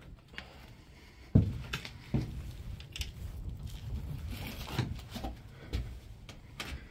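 A few scattered knocks and clicks over a low rumble, the sharpest about a second and a half in.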